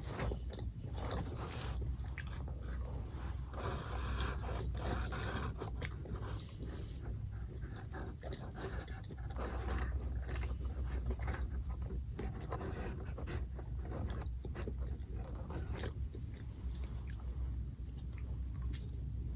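Close-up eating sounds: biting and chewing fast food, with many small clicks, smacks and crunches over a steady low hum.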